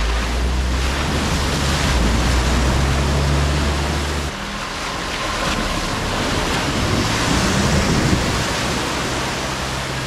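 Four-wheel-drive utes driving through a shallow river crossing: water splashing and rushing around the wheels over a low engine rumble, the sound shifting about four seconds in as a second vehicle comes through.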